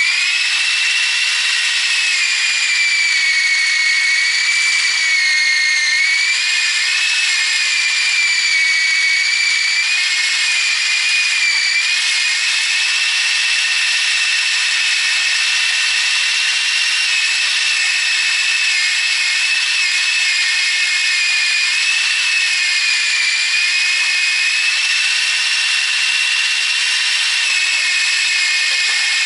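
Electric drill spinning a homemade drill-powered chicken plucker that is defeathering a scalded Cornish cross bird. It gives a loud, steady whine with its pitch wavering slightly as the load changes.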